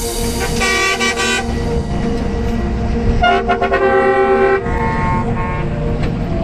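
A vehicle horn sounding in a few steady blasts of about a second each, over a low engine rumble.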